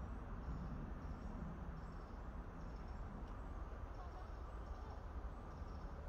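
Outdoor ambience: a steady low rumble on the microphone, with faint, short, high-pitched chirps repeating every half second or so.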